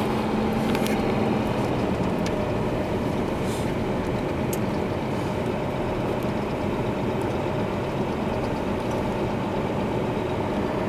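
Steady engine drone and road noise of a truck on the move, heard from inside the cab, with a low hum that fades about a second and a half in.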